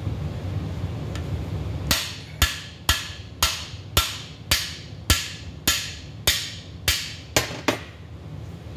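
Hammer blows on a cam bearing driver bar, driving a cam bearing into the cam tunnel of a Pontiac 400 engine block. About a dozen sharp strikes with a brief ring, roughly two a second, starting about two seconds in.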